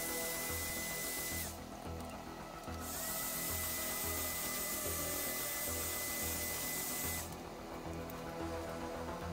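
Electric heat gun blowing hot air to soften flattened PVC pipe: a steady high whine over a rushing air hiss. The whine dips and stops about a second and a half in, starts again about a second later, and stops again about seven seconds in.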